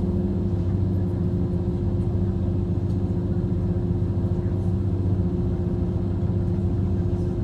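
Steady running noise inside a diesel regional train: an unbroken engine drone with a constant hum and a low rumble.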